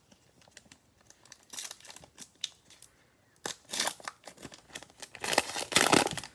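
Plastic crinkling and rustling as trading cards and their cello-pack packaging are handled, in short irregular bursts with a longer, louder stretch near the end.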